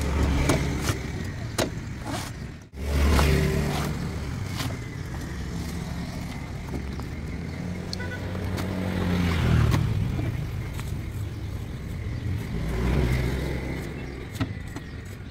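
A motor vehicle's engine running close by, its pitch rising and falling as it revs, with scattered sharp clicks.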